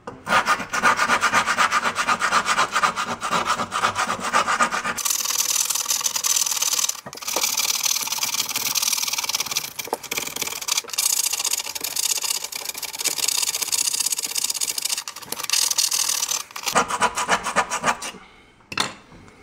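Hand grout saw scraping back and forth in the grout joints around a travertine backsplash tile, cutting out the old grout so the tile can be removed. Rapid rasping strokes that turn higher-pitched about five seconds in, with a short pause near the end before a few last strokes.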